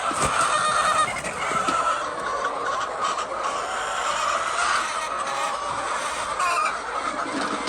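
A flock of chickens clucking and calling together in a dense, steady chorus, with a few light knocks near the start.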